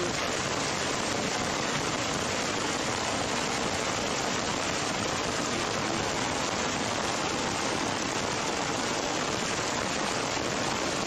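Heavy rain pouring down steadily, an even hiss without breaks.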